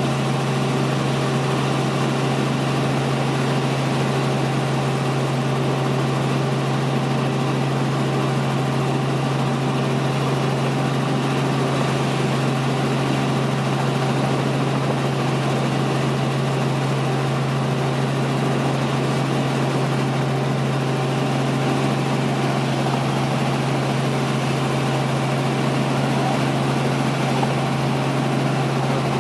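Helicopter in flight: a steady drone of engine and rotor with a strong low hum that does not change.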